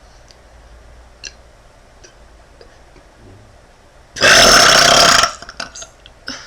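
A young woman lets out one loud burp lasting about a second, a little past four seconds in. A few faint clicks can be heard around it.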